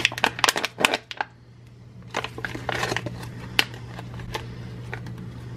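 Thin plastic candy wrapper crinkling and crackling as it is peeled open from a chocolate lollipop, in quick irregular bursts, densest in the first second and again a couple of seconds in. A steady low hum runs underneath.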